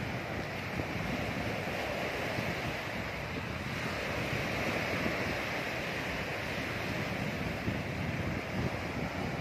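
Sea waves washing onto a beach in a steady wash of surf, swelling louder about halfway through, with wind buffeting the microphone.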